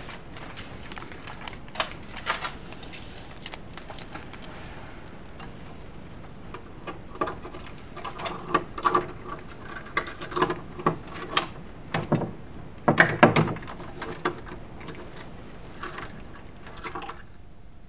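Handling noise from a hand-held camera: irregular knocks, clicks and rustles over a steady hiss. The loudest knocks come in a cluster about twelve to thirteen seconds in, and the hiss drops away near the end.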